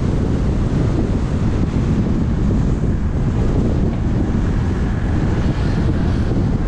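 Steady wind buffeting the microphone of a moving car, with road noise beneath it.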